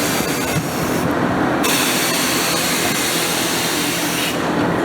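Compressed air hissing steadily from an air hose, blowing debris off a lawnmower tire rim. The hiss thins briefly about a second in.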